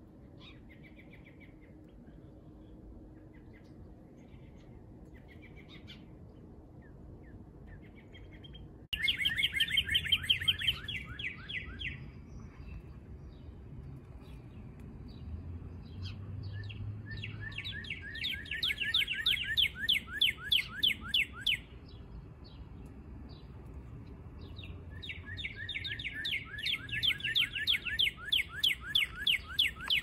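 A songbird singing three loud songs, each a fast run of repeated downslurred notes lasting three to four seconds, with faint scattered chirps before the first one.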